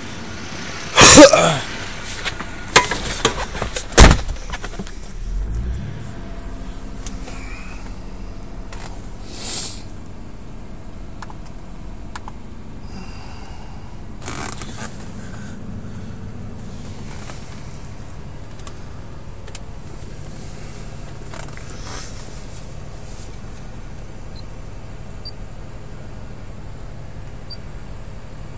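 Several loud knocks and clunks in the first few seconds, like a car door shutting and handling inside the car, then a car subwoofer system driven by an AP1500 amplifier starting a bass test track: a low tone rising about five seconds in, followed by a steady low bass hum.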